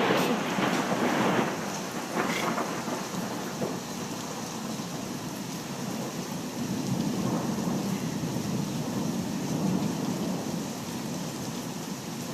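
Thunder rumbling and fading away after a close lightning crack, with a smaller crackle about two seconds in and another low rumble near the end, over steady rain.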